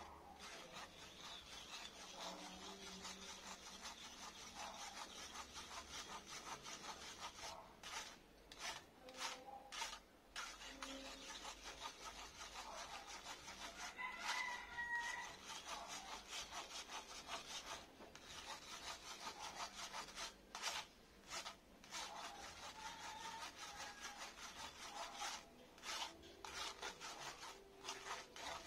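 Metal spoon scraping and rubbing beaten egg through a stainless-steel mesh sieve: a continuous rasping, broken by short pauses between strokes. A rooster crows briefly about halfway through.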